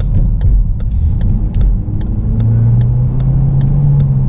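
Inside a moving Ford Focus: low engine and road rumble, with the turn-signal clicking at a steady pace of a bit over two ticks a second as the car merges left. About halfway through, a steady engine hum comes up as the car pulls ahead.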